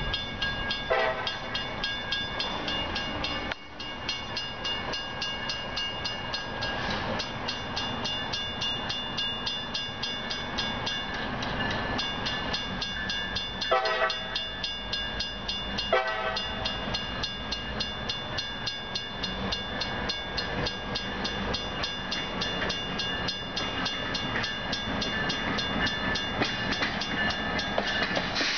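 A grade-crossing bell rings rapidly and steadily while a CSX rebuilt GP38-3 diesel locomotive rumbles in on its approach. Short horn blasts sound about a second in and twice around the middle, the loudest moments.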